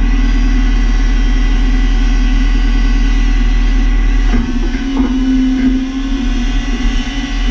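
Engine and hydraulics of a timber-loading forestry machine running steadily under load as its crane holds a log. About four seconds in the sound eases and turns more uneven, with two or three knocks.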